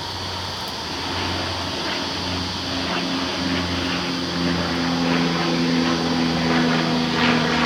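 Carniolan honeybees buzzing around an open hive, with one bee flying close by from about three seconds in, its steady hum growing a little louder.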